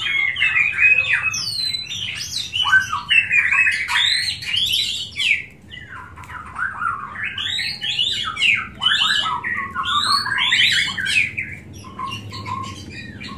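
Caged murai songbirds singing loudly and without a break: several birds at once, a dense tangle of quick rising and falling whistled phrases.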